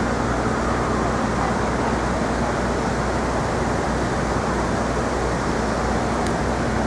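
Steady outdoor city noise: an even, constant rush with a low hum underneath and no distinct events.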